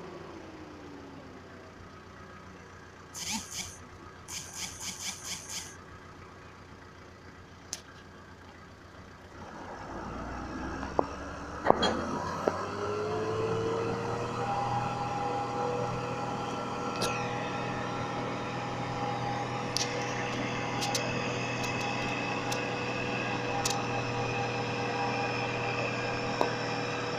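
Case IH 1255 tractor's diesel engine running low at first, then about ten seconds in revving up and holding steady at higher revs under load. There is a sharp knock as it picks up.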